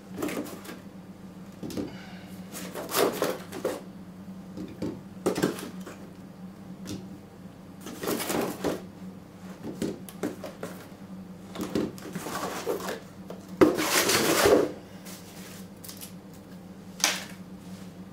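Irregular knocks, scrapes and cardboard rustling as a box of sealed lead-acid UPS batteries is handled, with a louder scrape about 14 seconds in and a sharp click near the end. A steady low hum runs underneath.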